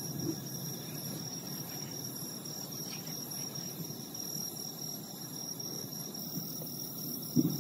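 Night insects chirring in a steady, high, unbroken tone. Just before the end comes the dull boom of fireworks that are out of sight.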